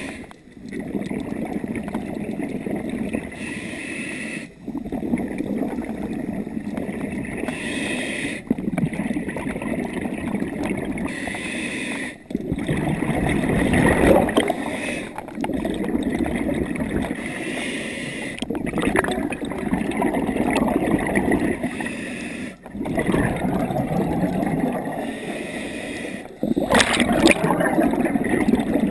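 Scuba regulator breathing heard underwater: rumbling, gurgling bursts of exhaled bubbles in long stretches, broken by short pauses every four seconds or so.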